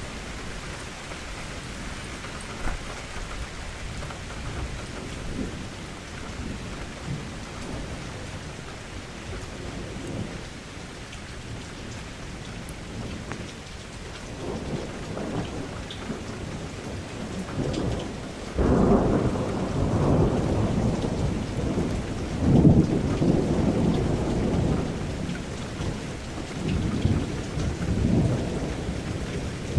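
Steady rain, with thunder rumbling in over the second half, swelling loudest about two-thirds of the way through and then rolling away.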